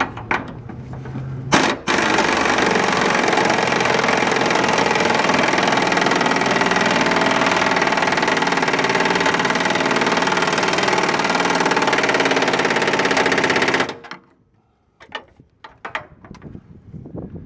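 Impact wrench tightening a fuel tank strap bolt through a socket on an extension: a short burst about a second and a half in, then steady rapid hammering for about twelve seconds that cuts off suddenly, followed by a few faint clicks.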